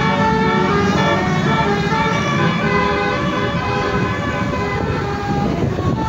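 Tour bus's multi-tone "telolet" horn playing a tune of changing notes, over the low rumble of the bus engine and traffic.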